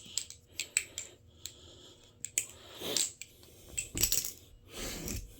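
Channel-construction balisong being flipped: quick metallic clicks and clacks of the handles swinging around the pivots and closing, then a few louder rattling knocks about three, four and five seconds in.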